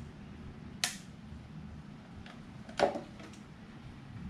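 Plastic oil bottle and improvised funnel being handled and pulled from a pit bike engine's oil filler: a sharp plastic click about a second in, then a louder clatter just before the three-second mark, with a few light ticks, over a steady low hum.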